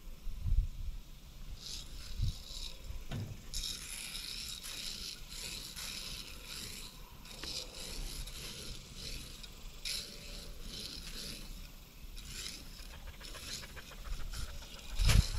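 Shelled corn poured from a sack into a metal game feeder and the feeder handled, kernels hissing and rattling in irregular spells with scraping, and a few dull thumps near the start and near the end.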